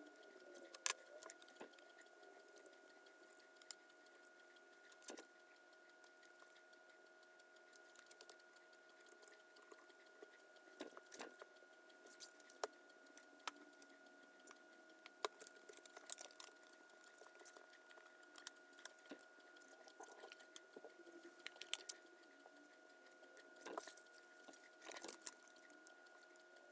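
Near silence: a faint steady hum of room tone, with scattered light clicks, taps and scrapes from gloved hands mixing epoxy and handling the knife parts at the bench.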